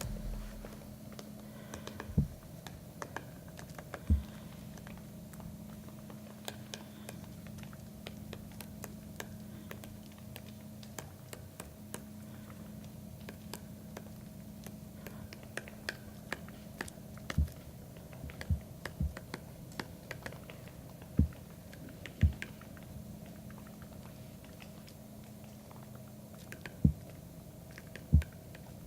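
Three-toed woodpecker pecking at wood, a scatter of irregular light taps with louder single knocks every few seconds, over a faint steady hum.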